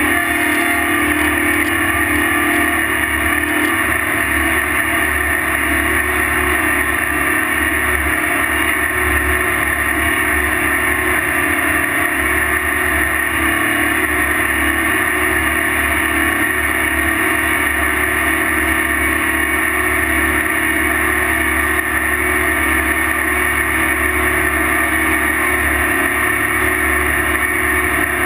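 Tractor engine running steadily under load, towing loaded pull-type earth scrapers, with a constant loud drone and no change in pitch.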